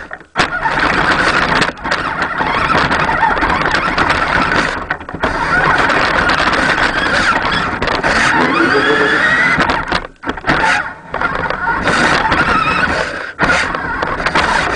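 Four-wheel-drive R/C truck's motor and drivetrain running as it drives through snow, heard through the waterproof housing of a camera mounted on its front. The noise drops out briefly several times, and a whine rises in pitch about eight to nine seconds in.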